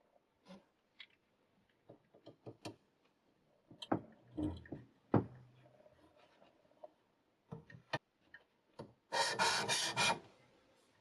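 Diamond sharpening stone rasping against a knife edge on a guided sharpener: a quick run of about four strokes near the end, after scattered clicks and knocks of handling the stone and clamp.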